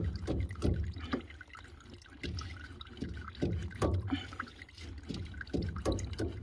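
Irregular gurgles and drips of water from central-heating pipework opened at a three-port valve, the draining flow nearly stopped.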